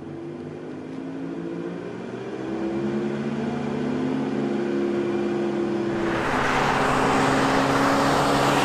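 The 2001 Dodge Ram 1500's 5.9-litre Magnum V8, heard inside the cab at full throttle, its pitch rising as the revs climb from about 2000 to 4000 rpm. About six seconds in, the sound switches to the truck heard from outside as it drives by: a louder, even rush of engine, exhaust and road noise.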